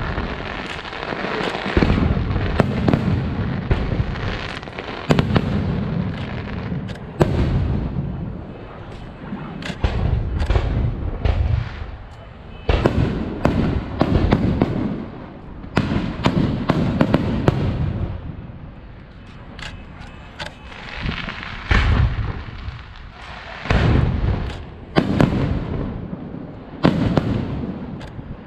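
Aerial fireworks show: shells bursting with repeated deep booms every couple of seconds, with many sharp cracks and crackling in between.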